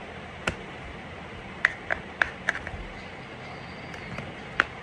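Small plastic toy tools and shape moulds clicking and tapping together as they are handled, a scattering of short, light clicks spaced irregularly, several bunched in the middle and one near the end.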